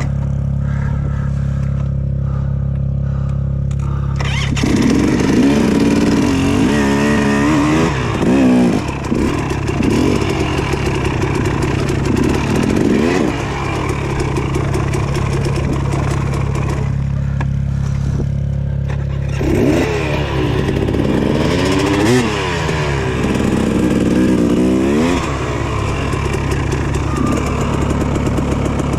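Dirt bike engine idling steadily, then from about four seconds in revving up and down again and again as the bike is ridden off.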